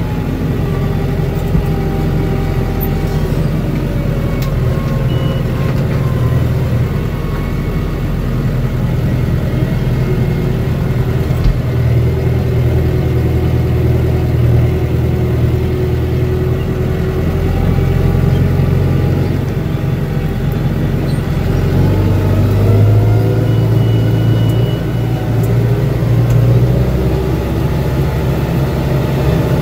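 New Holland TS6020 tractor's diesel engine running steadily under load while pulling a corn planter, heard from inside the cab. The engine note wavers a little in pitch, rising slightly near the end.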